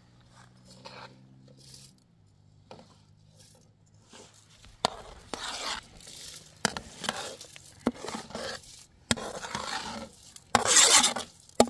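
Repeated scraping and rubbing strokes, irregular and growing louder toward the end, with a faint low hum in the first couple of seconds.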